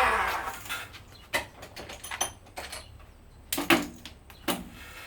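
Stainless steel braided sheath being slid along a plastic hose: a rasping scrape at the start that fades within half a second, then scattered sharp metallic clinks and knocks as the braid bunches up.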